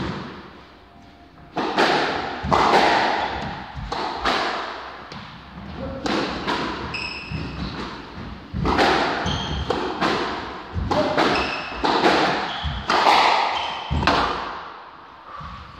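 Squash rally: the rubber ball cracks off the rackets and smacks the court walls every second or so, each hit ringing around the enclosed court. Between the hits come short high squeaks of court shoes on the wooden floor. Play starts about one and a half seconds in.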